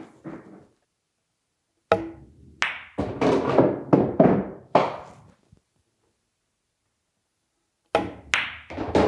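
Pechauer Rogue carbon fiber pool cue shaft taking test hits: the cue tip strikes the cue ball, followed by clacks of balls, in short groups of sharp knocks that fade quickly, with dead silence between the groups. The hit is a soft, tonky one, close to but not quite the sound of a wood shaft.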